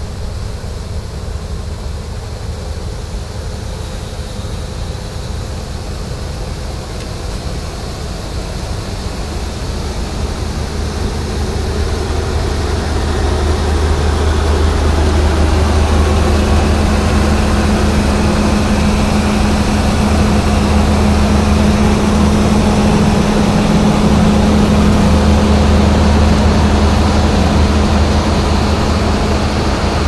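New Holland TX66 combine harvester running at working speed while unloading corn: a steady, loud engine drone with a low hum. It grows louder about halfway through and then holds steady.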